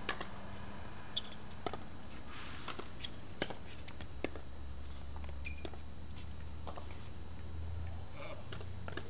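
Pickleball rally: sharp, irregular pops of paddles striking the hollow plastic ball and the ball bouncing on the hard court, about a dozen over several seconds, over a steady low rumble.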